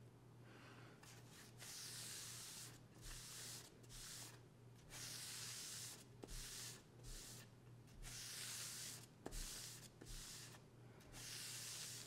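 A cloth wiping back and forth across a bamboo cutting board, spreading mineral oil into the wood: a series of soft hissing strokes, roughly one a second, with short pauses between them.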